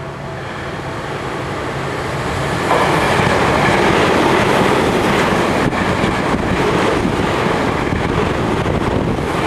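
Electric commuter train passing close by at speed without stopping. A rumble of wheels on rail builds as it approaches, jumps loud about three seconds in as the cars reach the track beside, then holds as a steady loud rush with a few clicks from the wheels.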